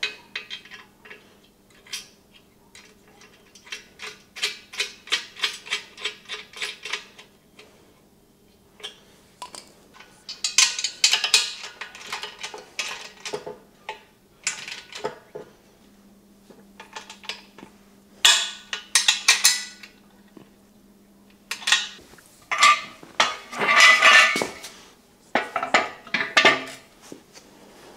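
Steel parts of a shop crane clinking and clanking as swivel casters are screwed into the threaded sockets of the steel base legs and the frame is handled. There are several bursts of metal clicks and clanks, including a quick run of clicks a few seconds in.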